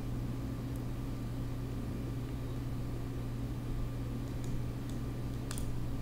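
Room tone of the recording setup: a steady low electrical hum under a faint even hiss, with a few faint short clicks.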